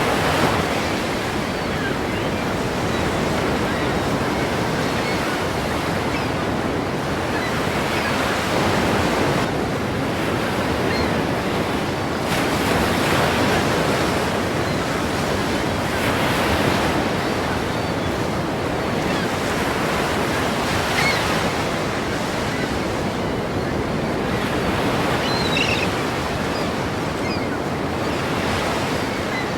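Ocean surf: waves breaking and washing continuously, swelling in loudness every few seconds.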